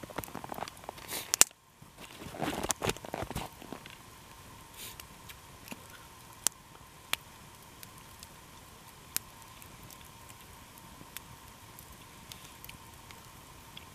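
Small wood campfire crackling, with scattered sharp pops. In the first few seconds there is louder rustling.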